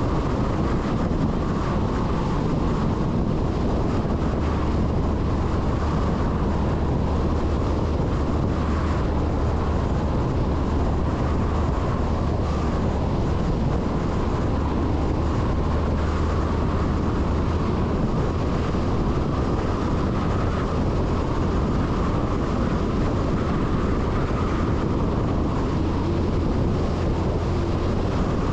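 MAN LE 280 B 4x4 truck driving at steady speed: an even, low diesel engine drone mixed with wind and road noise.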